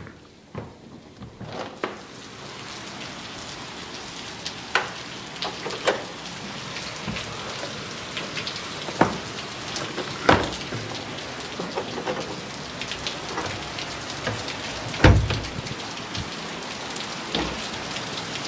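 Heavy rain pouring down: a steady hiss that grows louder about a second and a half in, with frequent sharp close drips and splats, and one heavier low thump about fifteen seconds in.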